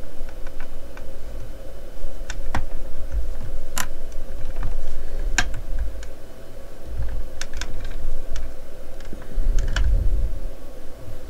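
Small plastic parts of a scale-model Corvette C8 clicking and tapping as the taillights are pressed into place by hand. About eight sharp, scattered clicks sound over a low rumble of hands and the model rubbing on the work mat, with a faint steady hum underneath.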